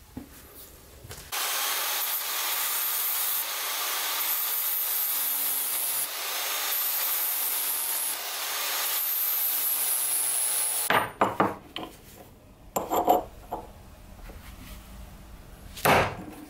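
Angle grinder disc grinding into a steel railroad spike: a steady, high grinding hiss for about nine seconds that stops abruptly. After it, a few sharp metal knocks and clinks as the spike is handled.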